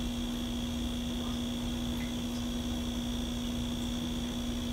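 Steady machine hum with a thin high whine above it, unchanging throughout.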